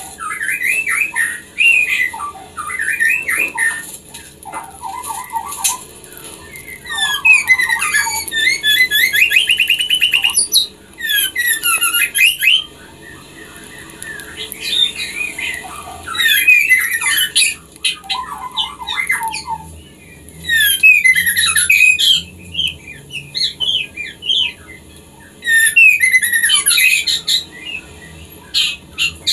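Female white-rumped shama (murai batu) in breeding condition calling: bouts of chattering notes, fast trills and whistles, each a second or few long, separated by short pauses.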